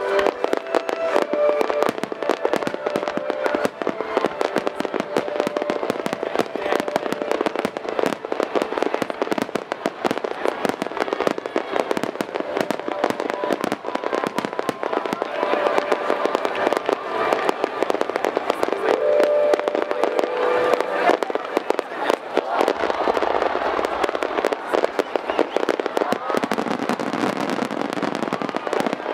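Fireworks display: a dense, continuous string of bangs and crackles from shells bursting in quick succession, turning heavier and deeper near the end.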